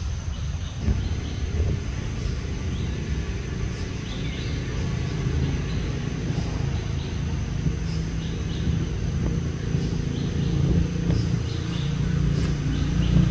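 A steady low rumble, growing a little louder near the end, with faint short high chirps here and there above it.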